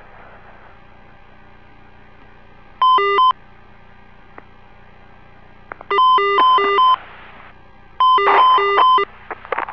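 Space Shuttle cockpit caution-and-warning alarm tone: an electronic tone alternating between a low and a higher pitch, sounding in short bursts about three, six and eight seconds in. It is the master alarm expected as the crew switch the auxiliary power units (APUs) off.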